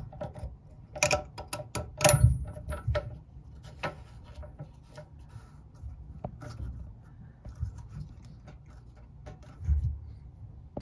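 Handling noise of a toilet bidet T adapter being fitted by hand: scattered sharp plastic-and-metal clicks and rubbing as its plastic nut is threaded onto the fill valve under the tank, with a few low knocks. The loudest clicks come about one and two seconds in.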